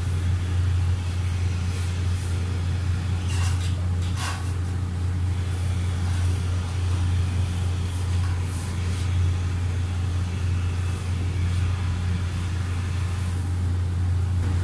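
A steady low hum, with a few faint rustles as a bed sheet is smoothed and tucked.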